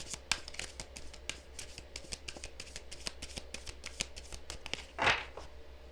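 Cards being shuffled by hand: a quick run of soft flicks and riffles, with one louder swish about five seconds in.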